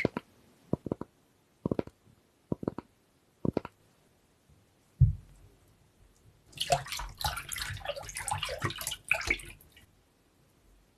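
Hand papermaking: a wooden screen mould worked in a vat of pulp. A few light wooden knocks come first, then a thump about five seconds in, then about three seconds of water splashing and dripping.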